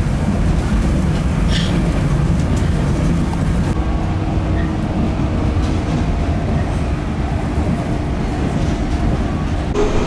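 Running noise inside a moving local electric train: a steady, loud rumble of wheels on rail. Right at the end it cuts to a train pulling away from a platform, its motor whine rising.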